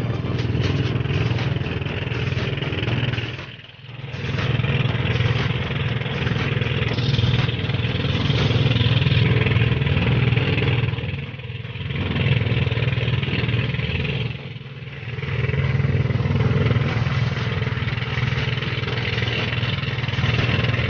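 A motorised outrigger boat's engine running steadily under way at sea, a constant low drone with wind and water noise over it. The sound dips briefly three times.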